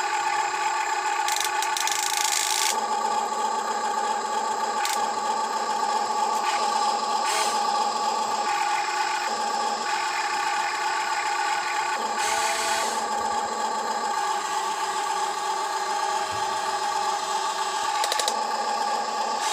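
Huina 1592 RC excavator's electric motors and gearboxes whining steadily as the boom, arm and turret are worked. The whine shifts every second or two as different functions start and stop, with a few short clicks and a brief scrape of dirt.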